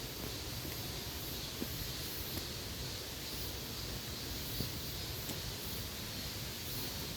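Steady forest background noise with faint rustling and a few soft ticks.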